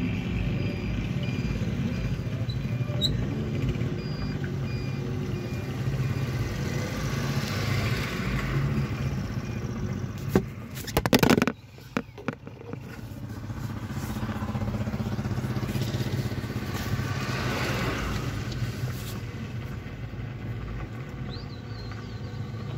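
Car engine and road noise heard from inside the cabin while driving, with passing traffic swelling and fading twice. About halfway through, a few sharp loud knocks and rubbing of the handheld camera being covered or moved, then a brief dip in the noise.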